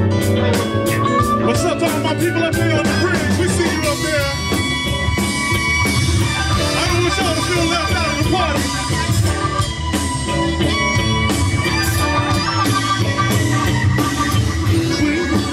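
A live band playing rock music through a stage PA, with electric guitar and drum kit, heard steadily throughout.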